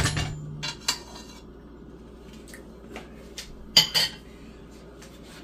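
Metal spoon clinking against a metal wok as a spoonful of butter goes in. A loud clink at the start, a few light taps, then two sharp clinks close together about four seconds in.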